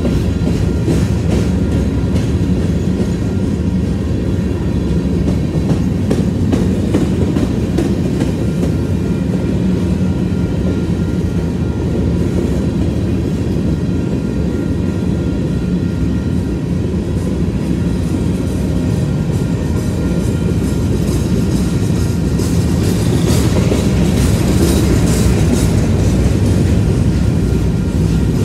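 BNSF covered hopper cars of a grain train rolling past at close range: a steady low rumble of steel wheels on rail with clickety-clack over the rail joints. The clatter grows sharper and a little louder about 23 seconds in.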